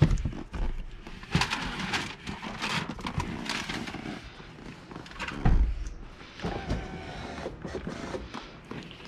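Irregular knocks and short rustling, hissing bursts from work around a car door and window, with a heavy low thump about five and a half seconds in.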